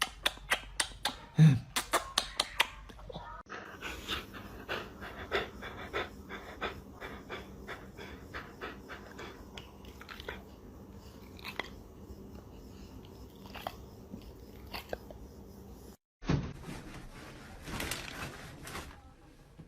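A dog panting in quick, regular breaths, about four a second, followed by a run of scattered small clicks and taps.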